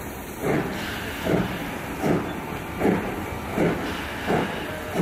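Exhaust beats of the steam locomotive 'Mayflower', an LNER B1 4-6-0, pulling a train out of the station, with a hiss running underneath. The beats come at about one and a third per second and quicken slightly as it gets under way.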